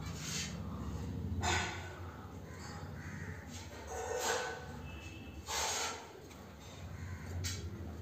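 Budgerigars giving short, harsh squawking calls, about five spread unevenly, the loudest about a second and a half in.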